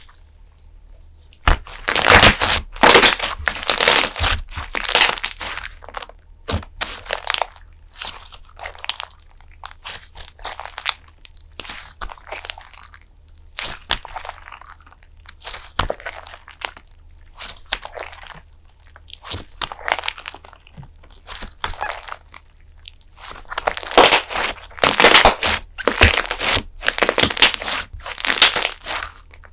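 Fluffy slime being squeezed and stretched by hand, crackling and popping in irregular bursts that are loudest shortly after the start and again near the end.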